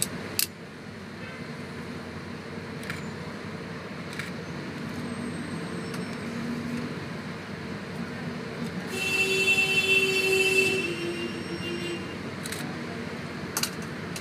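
Steady engine and road noise of slow, congested city traffic, with a few sharp clicks and rattles. About nine seconds in, a loud high-pitched squeal or tone lasts about two seconds and drops slightly in pitch at its end.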